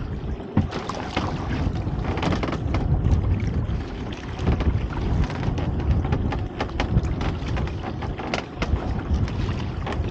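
Wind buffeting the microphone over water slapping around a small open boat, with scattered knocks and splashes as a lobster pot is hauled up to the side.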